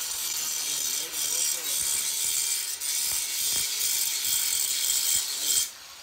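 Electric angle grinder grinding down a weld at a corner joint of a square steel-tubing frame: a steady, high-pitched grinding hiss of the disc on steel. The sound drops away near the end as the grinder comes off the metal.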